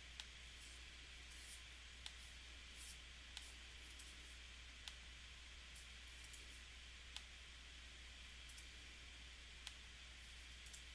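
Computer mouse and keyboard clicks: about seven short, sharp clicks spaced irregularly every second or two, over a faint steady hiss and low hum.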